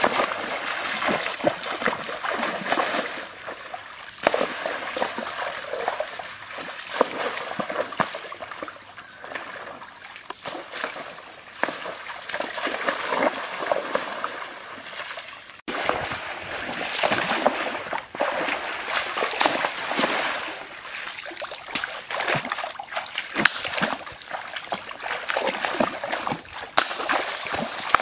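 Water splashing and trickling in a shallow river, with irregular small splashes throughout and a brief break about halfway through.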